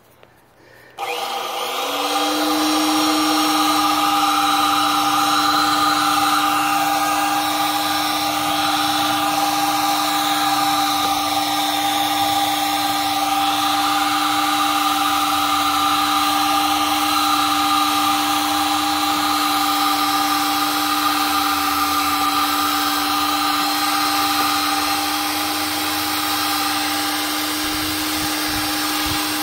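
The Power Krawl stair climber's drill motor drives its chain-driven gearbox, sprockets and tracks as the machine crawls across the ground. About a second in, the motor spins up with a quick rise in pitch. It then runs as a steady whine at a constant pitch.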